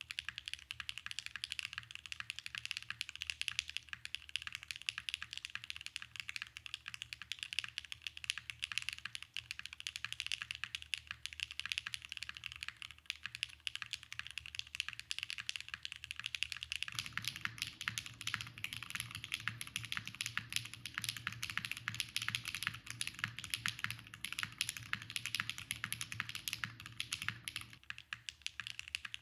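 Continuous fast typing on a foamless, gasket-mounted Neo65 Cu custom mechanical keyboard with a copper bottom and carbon fiber plate, Keygeek Jasmine V2 switches and GMK Oblivion keycaps. It has a deeper but still crisp keystroke sound. For about ten seconds past the middle the strokes take on a fuller, deeper low end.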